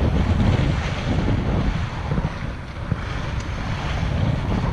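Wind buffeting the microphone of a camera on a moving bicycle, a loud, gusty rumble, with small river waves washing onto the shore beneath it.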